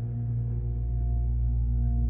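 Otis in-ground hydraulic elevator's pump motor running as the car starts up from the lower floor: a steady, deep hum with several held tones, heard from inside the cab.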